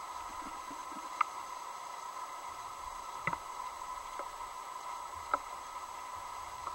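Underwater ambience picked up by a submerged camera rig: a steady hum with about five sharp clicks at irregular intervals.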